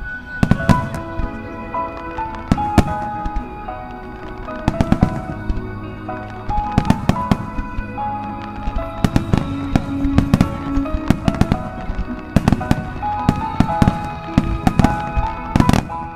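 Starmine fireworks shells bursting in quick, uneven clusters of sharp bangs, over background music with held notes.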